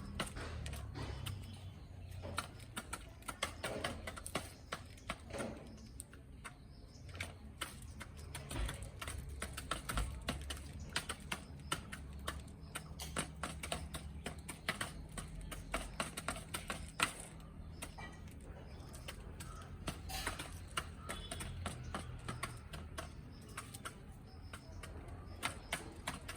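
Chickens pecking at food, a fast irregular run of sharp taps and clicks over a low steady rumble.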